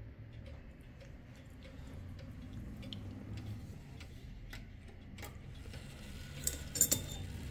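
Kienzle pendulum wall clock ticking, the last of its gong ringing dying away at the start. A few louder clicks come near the end as the minute hand is turned by hand toward the half hour.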